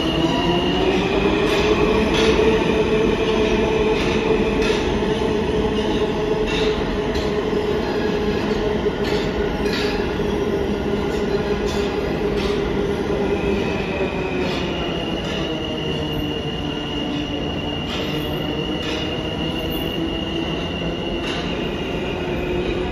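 New York City subway train running on the track, with a steady pitched whine that rises over the first two seconds, holds, then drops about fifteen seconds in. Scattered sharp clicks sound throughout.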